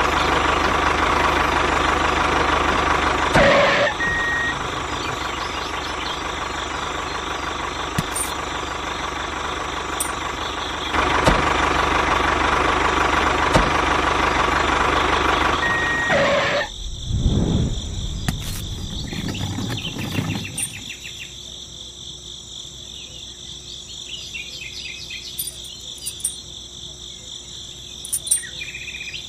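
An engine running steadily, loud for the first half. About two-thirds of the way through it drops to a quieter steady hum with a thin high whine. Two short high beeps come along the way.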